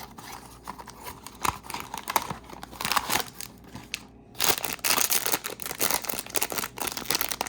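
A blind-box mini figure's packaging being torn open by hand, with irregular crinkling and tearing of cardboard and its inner bag. It pauses briefly a little past halfway, then the crinkling comes louder and denser.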